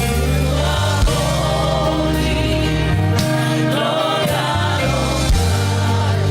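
Slow gospel worship music with a choir singing over sustained bass and keyboard chords.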